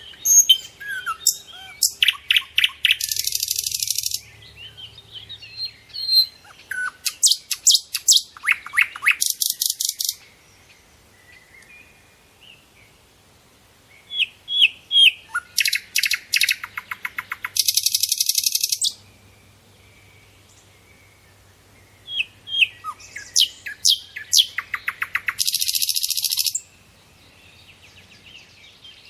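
A songbird singing the same song four times, about every seven or eight seconds: a run of sharp chirps that speeds into a fast, buzzy, high trill lasting a second or two. Softer twitters fill the gaps.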